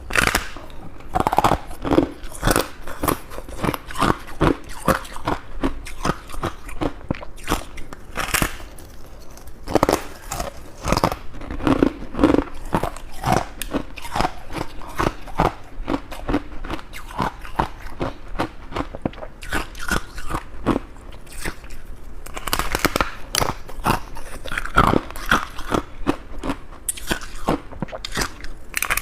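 Close-miked crunching and chewing of freezer frost: dense, crackly crunches and bites of soft frozen ice, one after another.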